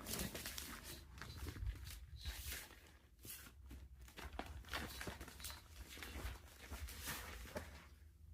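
Packaging being handled and torn open, with irregular short crackles and rustles of crinkling wrap.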